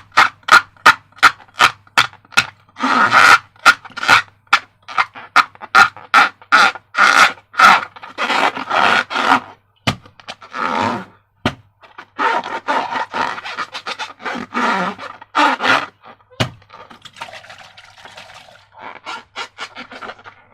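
Slime being squished and worked by hand: a quick run of sharp wet clicks and pops, several a second, mixed with longer squelching noises, thinning out in the second half.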